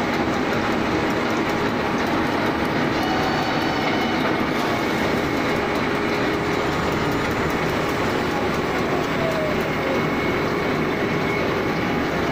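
CNC drilling machine's twist drill boring into a metal workpiece: a steady, dense noise of metal cutting and running machinery.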